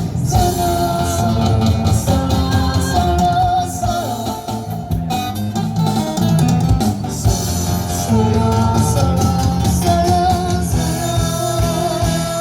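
A young singer's voice singing a melody over guitar accompaniment, with long held notes that waver slightly.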